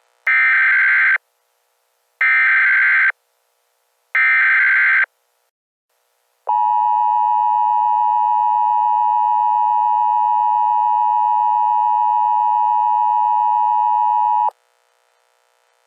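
Emergency Alert System SAME header: three short bursts of screeching digital data, then the steady two-tone EAS attention signal held for about eight seconds before it cuts off.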